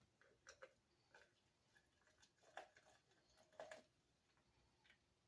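Near silence broken by a few faint clicks and light knocks, some with a brief ring, as of cups and containers being handled in a kitchen.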